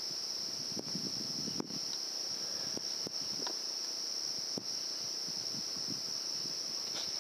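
Steady high-pitched chorus of night crickets, with a few faint soft taps close by.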